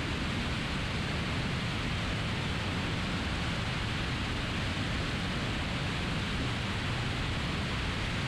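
Steady rush of airflow and engine noise from a Piper Archer single-engine light aircraft in level cruise flight: an even, unchanging hiss and drone.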